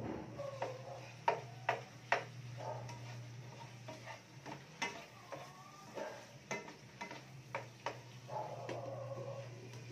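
Kitchen utensils clattering against cookware: scattered sharp clicks and knocks at irregular intervals, over a steady low hum.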